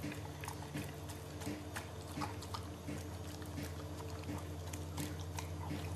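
Belgian Malinois eating raw minced meat from a bowl: irregular wet smacking, licking and chewing clicks. A steady low hum runs underneath.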